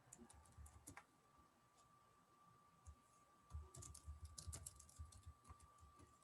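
Faint typing and clicking on a computer keyboard: scattered keystrokes, busiest in the second half, over a faint steady whine.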